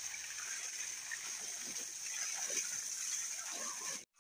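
Water spraying out of the open end of a black polyethylene water pipe and splashing into a ditch, a steady rush of water.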